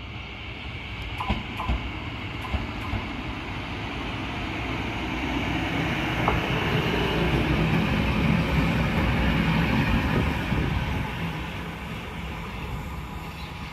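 An electric locomotive running light, with no wagons, passes along the track beside the platform. Its running noise grows louder to a peak about two-thirds of the way through, then fades as it moves away. A few sharp clacks of wheels over the rails come early and near the middle.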